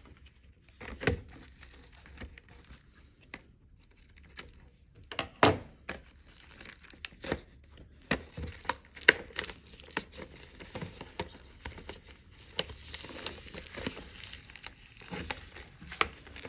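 Plastic shrink-wrap being picked at and peeled off a box of markers: irregular crinkling with sharp crackles, busier in the last few seconds.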